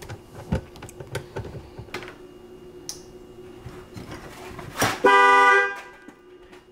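Small clicks and knocks of hands working a battery cable terminal, then about five seconds in the Dodge Charger Hellcat's horn sounds once, loud and steady for under a second, set off as the positive battery cable is connected.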